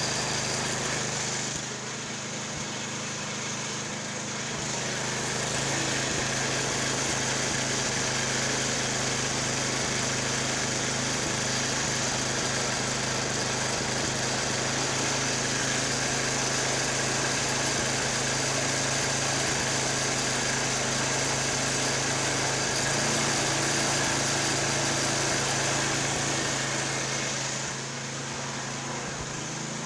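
Yard Machines snowblower's small gas engine running steadily. It gets louder about five seconds in and drops back near the end. It runs evenly now that a major vacuum leak has been fixed.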